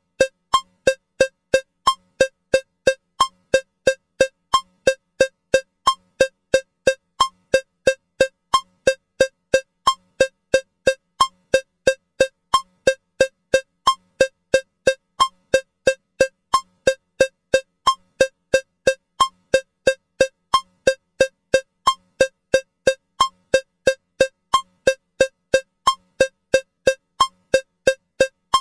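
Metronome cowbell sound striking steadily at 180 beats per minute, three short, bright strikes a second in an even pulse.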